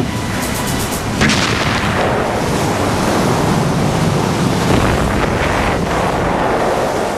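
Rushing sea and wind noise, loud and steady, with a sudden blast-like burst just over a second in.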